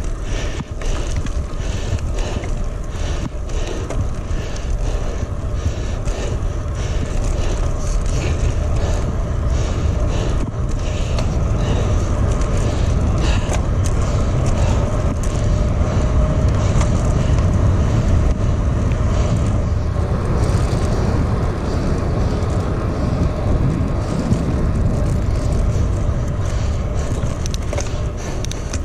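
Bicycle riding along a trail: wind rumble on the microphone over tyre noise. A light clicking about twice a second runs through the first half, and the rumble grows a little louder about halfway through.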